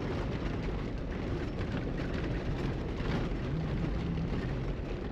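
Mercedes G-Class driving along a dirt forest track, heard from inside the cabin: a steady rumble of tyres on dirt and gravel with the engine running underneath.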